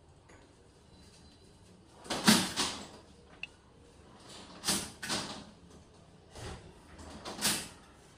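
Several short scraping noises, the loudest about two seconds in and the others spaced a second or two apart, with one sharp click partway through.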